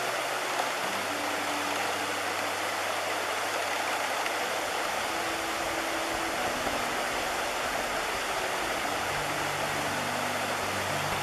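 River water rushing steadily over rocks and through shallow rapids, with a faint low hum underneath that shifts in pitch now and then.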